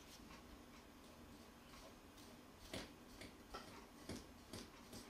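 Near silence, then from about halfway faint, irregular light clicks, roughly two a second, as fingers squeeze and mix butter, shortening and sugar in a glass bowl.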